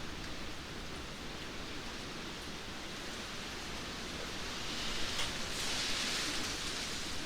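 Steady rainfall, an even hiss of many drops, swelling a little louder and brighter about two-thirds of the way through.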